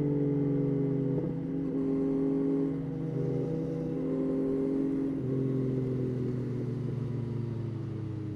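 Yamaha Tracer 9's 890 cc inline three-cylinder engine running while the motorcycle is ridden. Its pitch steps down slightly a few times and eases lower near the end.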